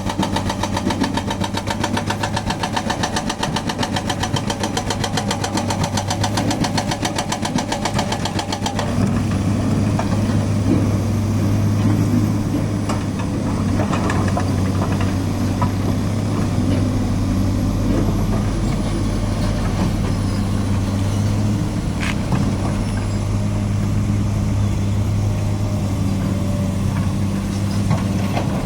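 Volvo excavator's hydraulic breaker hammer pounding concrete in a rapid, even train of blows over the running diesel engine, stopping about nine seconds in. The engine then keeps running steadily, with a few scattered clanks.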